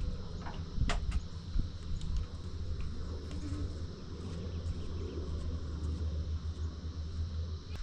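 Insects droning steadily in an even, high tone over a low rumble, with a few sharp clicks about a second in.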